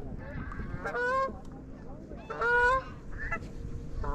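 Geese honking in a series of short calls, the loudest about a second and two and a half seconds in, over steady wind noise on the microphone.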